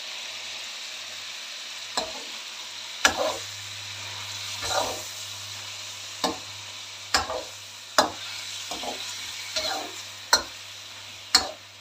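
Chicken pieces sizzling steadily in hot oil in a metal wok, while a metal spoon stirs them in, scraping and knocking against the pan about ten times at irregular moments.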